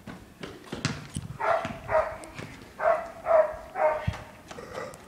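A dog barking: about five short, sharp barks in quick succession.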